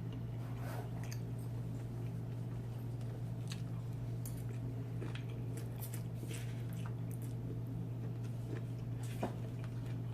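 Close-up eating sounds: scattered wet, squishy chewing and small clicks of food being bitten into, over a steady low hum.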